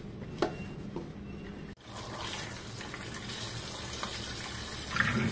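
Kitchen tap water running into a steel colander of button mushrooms as they are rinsed by hand, washing off the flour they were rubbed with. The water runs steadily and is briefly louder near the end. Before it, a few light knocks come from the mushrooms being handled in a steel bowl.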